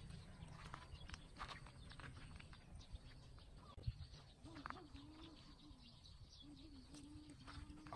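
Faint, near-silent outdoor sound of someone stepping over rubbish, with scattered soft clicks and crackles. In the second half a faint low wavering drone or call comes in twice, a second or more each time.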